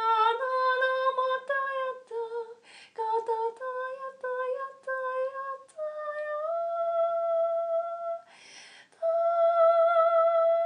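A woman's voice singing unaccompanied in wordless light-language syllables: a run of short, shifting notes, then two long held notes with a short pause between them about eight and a half seconds in.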